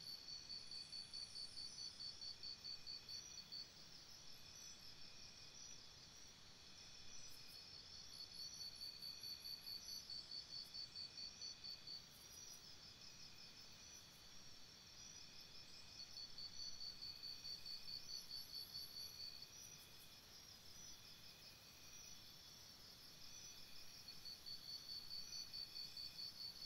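Faint chorus of forest insects, cricket-like. A high, rapidly pulsing trill comes in four bouts of about three to five seconds over a steadier, fainter high chirring.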